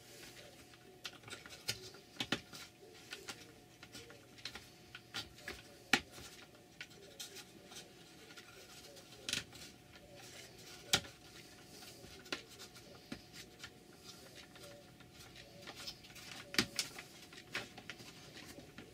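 Irregular small clicks, taps and scratches of thin wooden ribs being handled and pressed into the slotted holders of a model ship's hull frame, with a few sharper clicks among them. A faint steady hum runs underneath.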